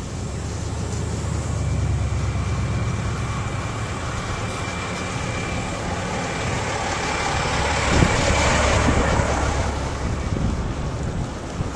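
Road traffic heard from a moving bicycle, with steady wind rumble on the microphone. A tanker semi truck passes in the other lane, and the noise swells to its loudest about eight seconds in before easing off.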